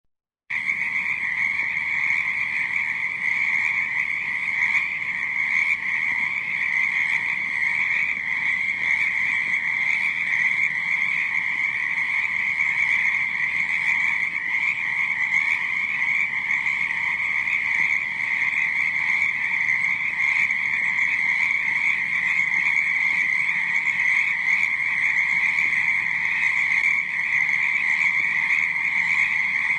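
A dense chorus of many frogs croaking, a steady unbroken high-pitched trilling mass of calls that starts about half a second in.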